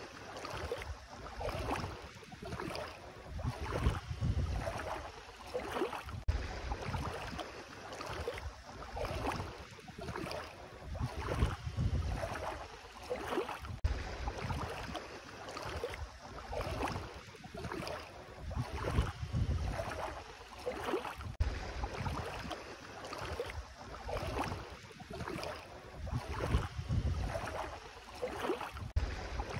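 Bare feet wading through ankle-deep sea water, a slosh and splash with each step, about one step a second.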